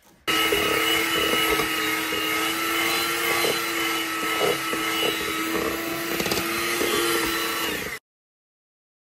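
Electric mixer running at a steady speed, beating butter in a bowl, with occasional light knocks of the beaters against the bowl. It starts abruptly and cuts off sharply near the end.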